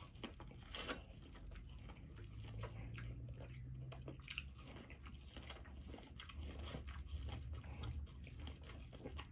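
Close-up biting and chewing of corn on the cob: a run of small, irregular crunching clicks.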